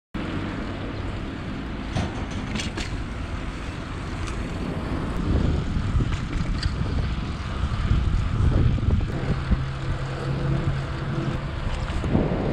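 Wind rushing over the microphone of a camera on a moving bicycle, mixed with tyre and road noise, and a few knocks about two seconds in. A low steady hum comes in about eight seconds in and stops about a second before the end.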